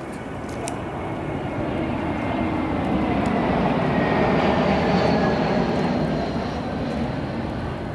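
Airplane passing overhead: an engine rumble that swells to its loudest midway and then eases off, with faint whining tones sliding slowly down in pitch.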